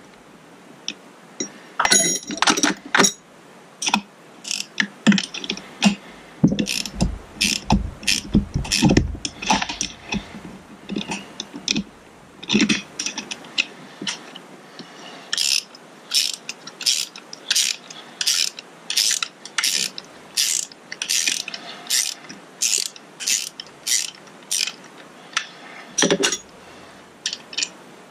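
Ratcheting wrench clicking as nuts are backed off an outboard starter solenoid, mixed with knocks of metal parts being handled. In the second half the clicks run evenly, about two a second.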